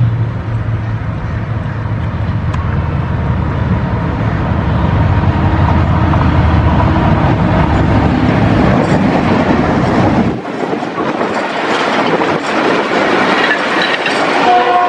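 GEU-40 diesel-electric locomotive approaching and passing at speed with a container train: its engine's low rumble grows until it goes by about ten seconds in, when the rumble drops away suddenly. The container flatcars' wheels then clatter and hiss over the rails.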